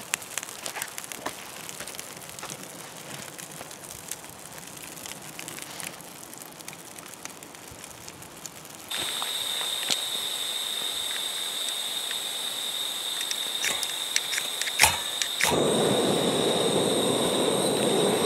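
Small stick campfire crackling with scattered pops. After a cut there is a steady high whine, then two sharp clicks and the steady rushing hiss of a backpacking canister gas stove burner running.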